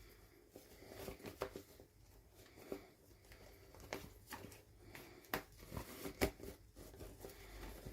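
Hands unboxing small plastic toys: packaging crinkling and rustling, with irregular sharp clicks and taps of plastic pieces being handled.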